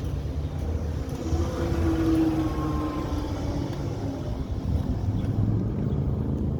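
Steady low rumble of a motor vehicle running, with a faint held tone in the middle.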